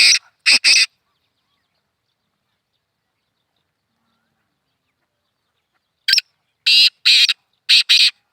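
Black francolin calling: a phrase of short, harsh notes that ends about a second in, then after a long silence another phrase of about five notes near the end.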